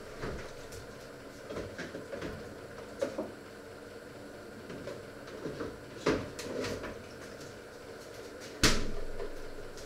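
Scattered knocks and clatter of someone rummaging in kitchen cupboards, with a sharper knock about six seconds in and the loudest bang about a second before the end, a cupboard door shutting.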